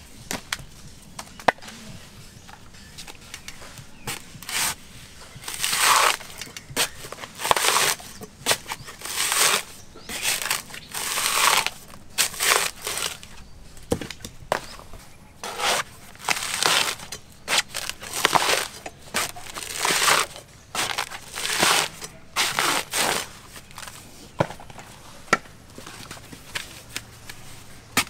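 Coconut husk being prised and torn off on a metal dehusking spike: repeated crunching, tearing bursts of fibre, irregular and each shorter than a second.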